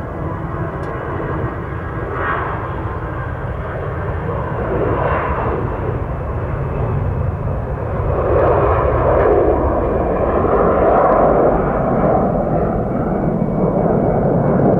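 Airbus A320-200 jet engines at takeoff power, a steady rushing noise with a faint whine, growing louder about eight seconds in as the airliner departs.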